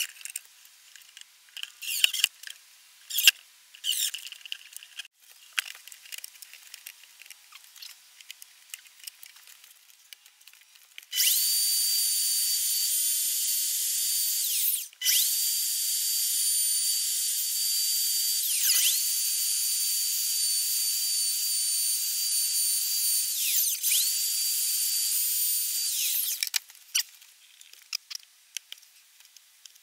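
Bosch POF plunge router running at full speed with a steady high whine, starting about a third of the way in and cutting off shortly before the end. Its pitch sags briefly a few times as the bit bites into the wood. Before it come a few short bursts from a cordless drill-driver.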